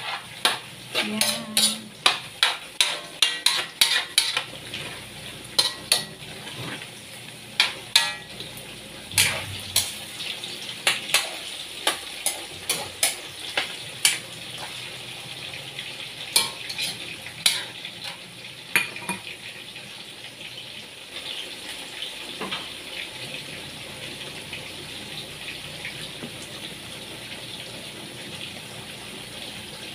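A spatula scrapes and clanks against a metal wok as chicken pieces are stirred, over a steady sizzle of the chicken frying. The clanks stop about two-thirds of the way in, leaving the sizzle on its own.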